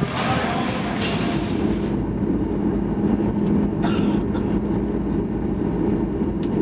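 Cabin noise of a Boeing 737 MAX taxiing: a steady low hum with rumble under it, after a brighter hiss in the first two seconds. One sharp click comes about four seconds in.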